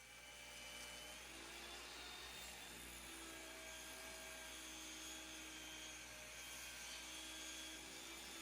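A woodworking power tool running steadily with a high whine and a few held tones that shift slightly in pitch.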